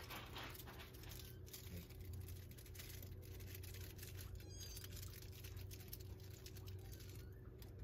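Soft, faint rustling and light scratchy ticks of Persian kittens shifting about in a plush cat-tree bed, over a low steady hum, with one faint high squeak about halfway through.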